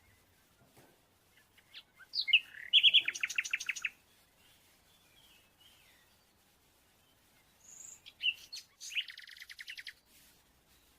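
A small bird singing: two song phrases, each opening with a few sharp chirps and running into a rapid trill, about two seconds in and again about eight seconds in.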